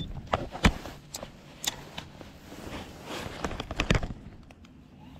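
Irregular clicks and knocks from fishing gear being handled in a plastic kayak, with two louder knocks, one about half a second in and one near four seconds in.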